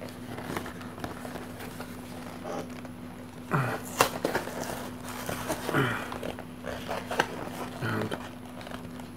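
Fingers and fingernails picking and prising at the glued flap of a small white cardboard card box: scratching, with a few sharp cardboard clicks as the glue gives. A few short low vocal grunts and a steady low hum sit underneath.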